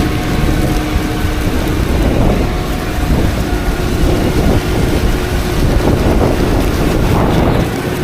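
Heavy farm machinery running steadily, with wind noise on the microphone.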